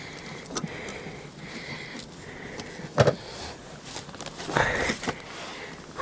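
Close handling noises while unhooking a fish from a landing net: soft breathing and sniffing in a steady rhythm, a single sharp knock about halfway, then a louder rustle near the end as the fish is lifted out.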